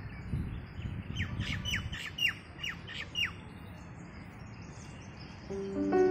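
A bird giving a quick run of about eight short, sharp calls, each falling in pitch. Background music comes in near the end.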